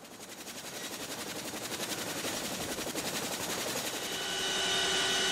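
Helicopter approaching: a rapid, even rotor chop growing steadily louder, with the engine's steady turbine whine coming in about four seconds in.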